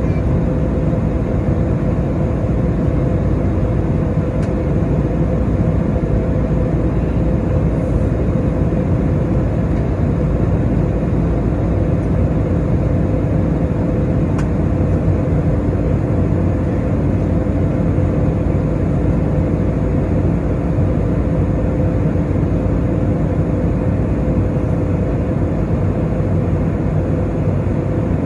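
Steady drone of an Airbus A320neo's engines and rushing air, heard inside the passenger cabin during the climb after takeoff, with a steady hum of a couple of tones running under it.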